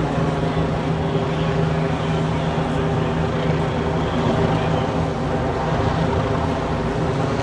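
A large engine running steadily at one constant speed, a loud, even drone with a low hum.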